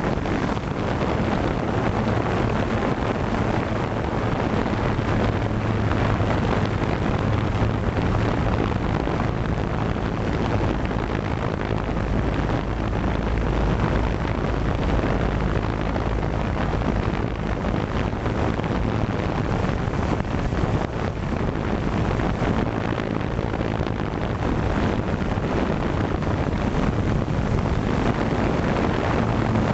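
A multirotor drone's electric motors and propellers running steadily in flight, a continuous hum with a slightly shifting pitch, heard through the on-board camera's microphone with wind noise over it.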